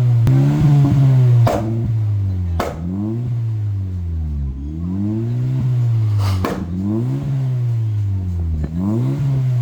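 Honda City i-VTEC four-cylinder engine, breathing through a full aftermarket exhaust, revved up and down over and over. A few sharp pops come from the exhaust as the revs fall, the overrun pops and crackles of its Stage 2 tune.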